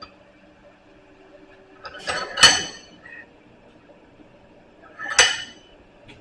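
Two loud metal-on-metal clanks at a blacksmith's vise, about three seconds apart, each ringing briefly.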